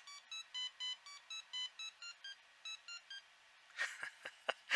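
A simple tune of about a dozen short, buzzy beeped notes, roughly four a second at changing pitches, played by a homebrew SC/MP microcomputer through a small speaker driven from the processor's flag 0 output. A few short clicks follow near the end.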